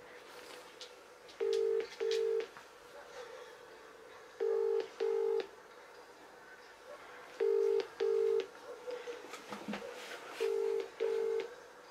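British-style telephone ringing tone from a mobile phone's speaker: a double ring, two short beeps, repeated every three seconds, four times. An outgoing call is ringing out, not yet answered.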